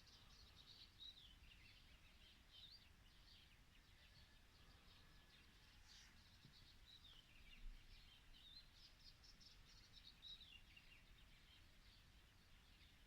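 Faint dawn chorus of small songbirds: many overlapping high chirps with several falling trills, over a low background rumble.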